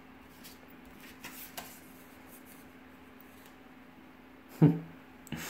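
Faint rustling and light taps of postcards and paper being handled over a faint steady hum, with a short vocal sound a little over four seconds in.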